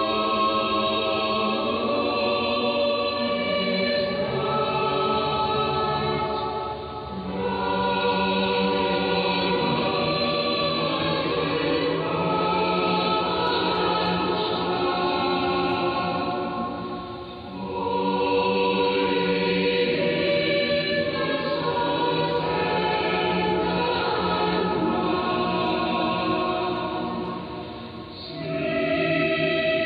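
Church choir singing a slow sacred piece in several parts, in long held phrases with brief breaks between them, heard through a longwave AM radio receiver with the treble cut off.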